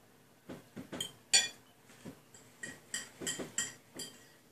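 Metal fork clinking against a dinner plate: a quick, uneven run of about a dozen ringing clinks as food is picked up off the plate, the loudest about a second and a half in.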